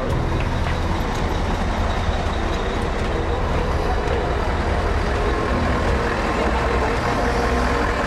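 Tour coaches' engines idling: a steady low rumble.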